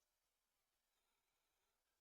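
Near silence: the audio is practically muted, with only a very faint steady hiss.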